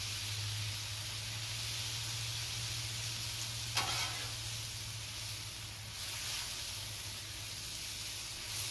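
Thin-sliced marinated beef sizzling steadily in oil on a hot flat-top griddle, with one brief sharper sound a little under four seconds in.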